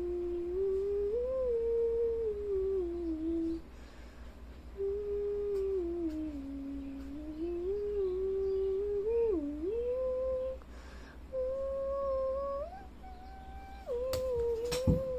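A person humming a slow tune with long held notes that step up and down in pitch, pausing briefly twice. A few sharp clicks come near the end.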